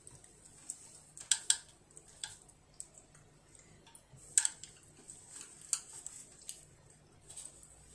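Chopsticks clicking and tapping against a plate in scattered sharp taps, a few louder than the rest.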